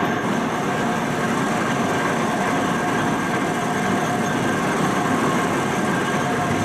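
Steady mechanical running noise, with a few steady whining tones held throughout.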